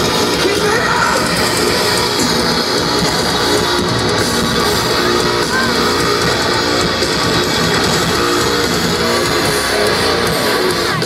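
A live metalcore band playing at full volume, with heavy electric guitars over drums, recorded from within the crowd. The loudness holds steady throughout.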